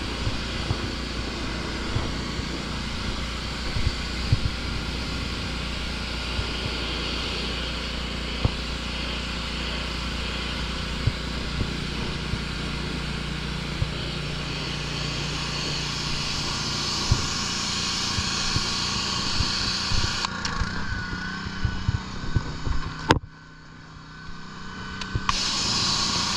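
Pressure washer running: a steady engine hum with the hiss of the water spray over it. The sound drops away sharply for about two seconds near the end, then comes back.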